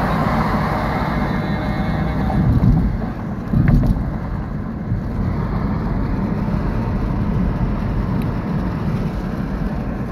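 Car cabin noise while driving: a steady rumble of engine and tyres on the road, with a brief thump about three and a half seconds in.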